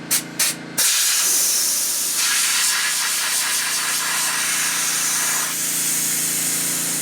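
Compressed air hissing into a dirt-bike front tire through an inflator: two short puffs, then a steady hiss from about a second in as the tire is pumped toward about 50 psi to seat the bead. A steady low hum runs underneath.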